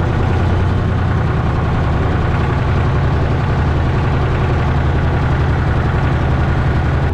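Tractor diesel engine running steadily at low revs, heard from inside the cab as the tractor moves slowly.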